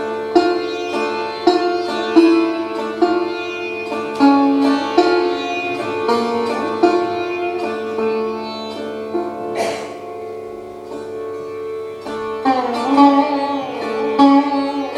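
Sitar played solo: a run of sharply plucked notes ringing over a steady drone, with notes sliding in pitch after about twelve seconds. A brief noisy burst comes about ten seconds in.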